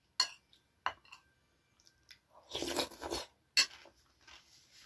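Metal spoon clinking sharply against a ceramic soup bowl three times, with a short stretch of close-up eating noise, mouthing and chewing a spoonful of borscht, a little after halfway.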